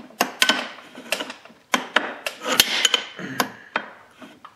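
Irregular metal knocks and clunks, about a dozen, loudest and densest around the middle, from the exposed connecting rod and crank of a two-stroke Maico 500 engine being worked by hand. The owner takes the crank bearings to have locked up.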